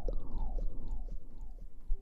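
Close-miked ASMR rustling and scrubbing against the microphone, soft strokes repeating about twice a second over a low rumble.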